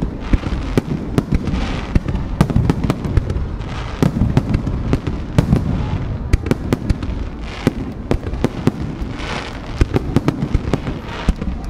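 Aerial firework shells bursting overhead, heard from very close: a loud, rapid string of sharp bangs, with stretches of crackling between them.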